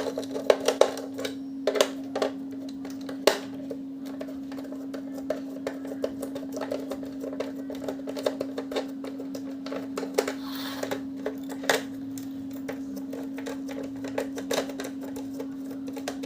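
Screws being undone from a junction box cover with a screwdriver: irregular sharp clicks and small metal taps, over a steady low hum.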